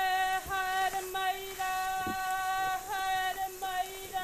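A singing voice holding one sustained note at a steady pitch, repeated with short breaks between the held tones, like a chant.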